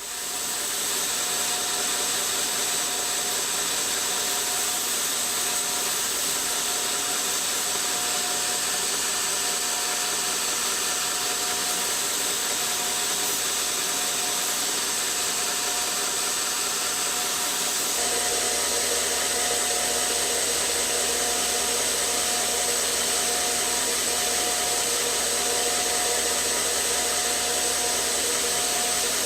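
Belt grinder running with its big flat contact wheel, a steady motor hum with a high whine and abrasive hiss, as the kitchen knife's flat grind is blended and the scratches are taken out. The sound shifts slightly about eighteen seconds in.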